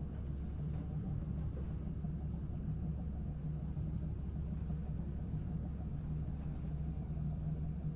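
A machine's engine running steadily at a constant speed, a low, even hum that drops off right at the end.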